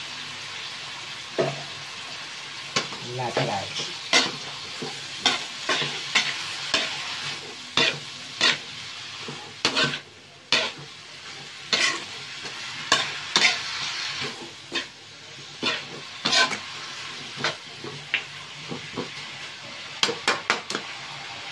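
A metal spatula scrapes and clinks irregularly against a steel wok as pork and string beans are stir-fried, over a steady frying sizzle. A quick run of clinks comes near the end.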